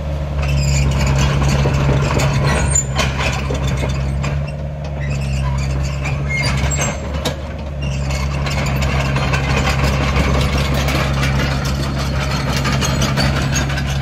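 Takeuchi TB175C midi excavator travelling on its steel tracks: the diesel engine runs steadily under the clatter of the track chains, with a few sharp clanks and brief squeaks. The engine note drops for a few seconds around the middle, then picks up again.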